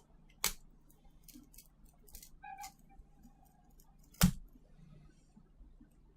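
Small tools clicking and scraping on a smartphone's parts as its adhesive flex cable is peeled back: two sharp clicks, about half a second in and near four seconds in, the second louder, with lighter ticks and scrapes between them and a brief thin squeak near the middle.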